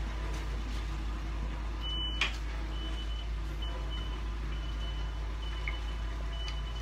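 Backup alarm of a work vehicle beeping, a short high beep at one pitch repeating a little under once a second from about three seconds in. There is one sharp click about two seconds in.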